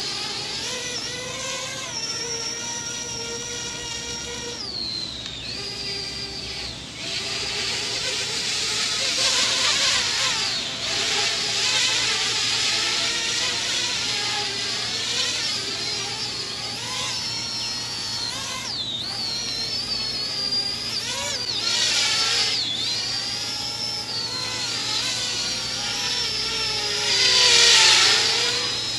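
Parrot Bebop 2 quadcopter's motors and propellers whining in flight, the pitch rising and falling as it is flown hard with changing throttle. It swells louder near the end.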